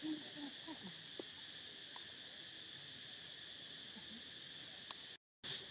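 Steady high-pitched drone of insects such as crickets or cicadas, with a few faint short squeaks from macaques near the start. The sound drops out for a moment near the end.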